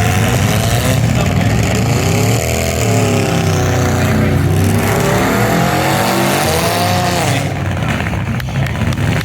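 Several demolition derby cars' engines running and revving, their pitch rising and falling, over a steady low rumble.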